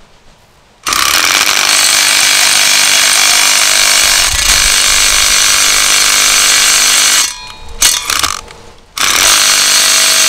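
Cordless impact driver driving a new concrete screw through a metal post bracket into concrete, in a long run of about six seconds from about a second in, a short burst, then a second run about nine seconds in. The screw replaces one whose threads were chewed up so they couldn't bite the concrete.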